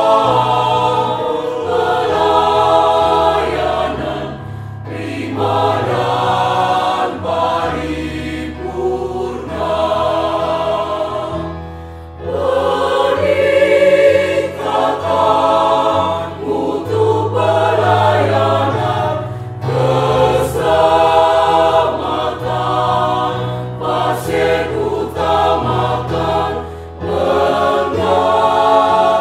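Mixed choir of men's and women's voices singing a piece in parts, phrase after phrase, with a brief dip in loudness about twelve seconds in before a loud entry.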